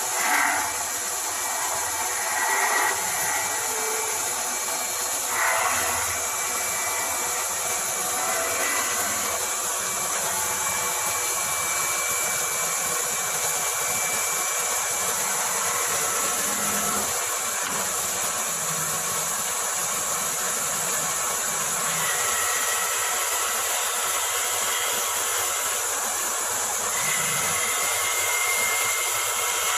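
Mini CNC wood-turning lathe running and cutting wood, a steady whine and hiss with a few brief louder bursts of cutting in the first six seconds.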